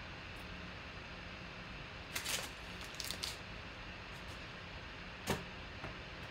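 Trading cards being handled: a few short rustles and light taps of cards on a tabletop mat over a steady low room hum, the sharpest tap about five seconds in.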